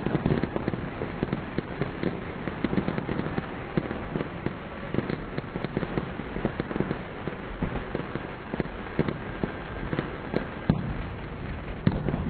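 Fireworks and firecrackers going off at a distance: a dense, irregular crackle of pops, with a few sharper bangs near the end.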